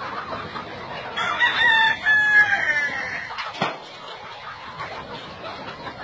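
A large flock of chickens clucking and calling, with one rooster crowing a single long crow about a second in that lasts roughly two seconds.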